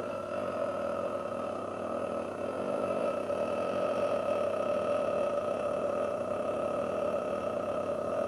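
A steady pitched drone that slowly swells in loudness over the first few seconds, with a faint low hum beneath it.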